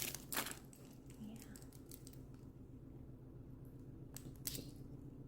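A few light clicks and a brief crinkle from handling a small keychain and its packaging, with two sharp clicks about four seconds in, over a faint steady room hum.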